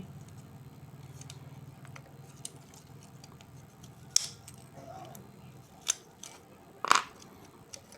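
Scattered light clicks and taps as small plastic parts of a quartz wall clock are handled during reassembly, over a faint low hum that stops a little past halfway.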